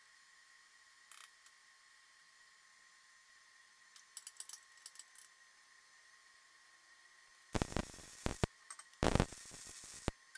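MIG welding arc crackling in two short runs of about a second each near the end, welding the end plate to the shaft of a steel conveyor roller. Before them come a few light clicks of handling, over a faint steady whine.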